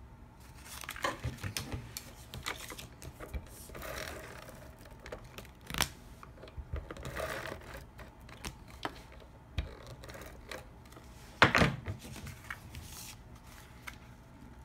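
Cardstock being handled and pressed down on a wooden table: paper rustling and scattered light clicks and taps, with a sharper knock about three-quarters of the way through.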